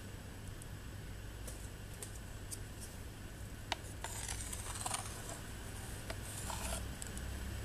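Red-eared slider hatchling paddling in shallow water in a plastic tank: light clicks and scrapes of its claws on the plastic and two short bouts of small splashing over a steady low hum, with one sharp click about halfway.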